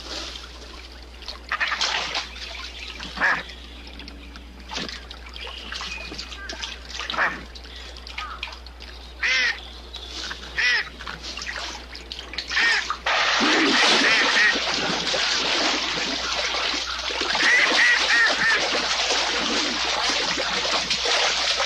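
Mallard duck quacking in short separate calls, then from about halfway a loud, continuous rush of splashing water with more quacks over it.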